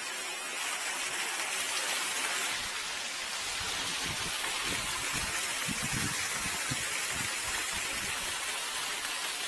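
Water rushing steadily, a hiss that sets in about half a second in, with irregular low rumbles through the second half.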